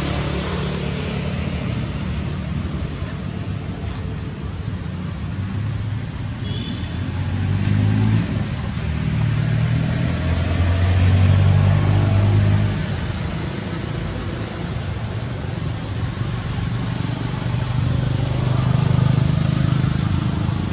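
Motor vehicle engines running past, swelling louder about midway and again near the end, over a steady outdoor hiss.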